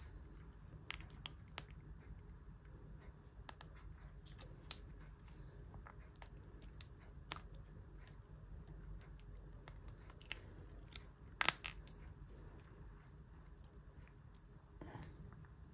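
Knife cutting and scraping through wax honeycomb: scattered soft clicks and crackles, with one sharper click about two-thirds of the way through. A steady high insect trill, likely crickets, runs underneath.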